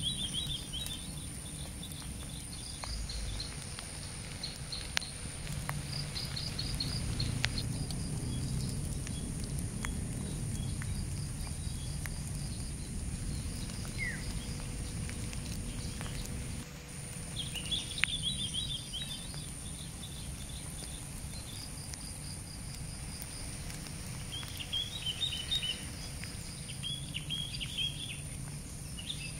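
Outdoor ambience: small birds chirping in short repeated trills, over a steady high-pitched whine and a low rumble.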